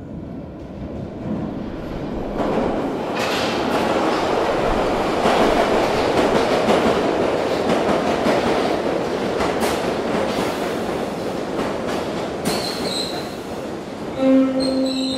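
Underground metro train running, its wheel and track noise swelling over the first few seconds and then slowly easing. A short pitched tone sounds near the end.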